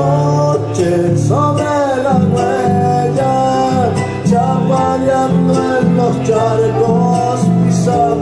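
Argentine folk music in huella style, led by acoustic guitars playing a flowing melody over strummed chords.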